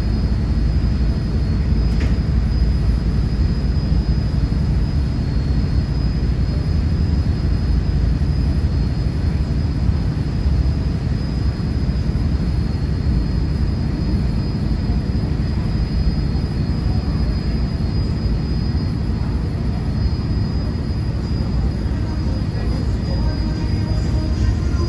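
A ferry boat's diesel engines running steadily under way, with a constant low rumble and a thin steady high whine above it.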